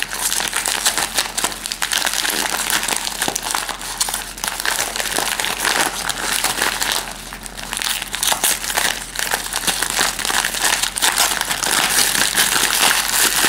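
Printed paper blind bag being crinkled and worked open by hand, with a continuous rustle of small crackles and a brief lull about halfway through.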